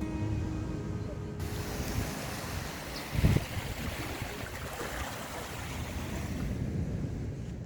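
Sea surf washing onto a beach, a steady rushing noise, with wind buffeting the microphone and one short, louder gust about three seconds in.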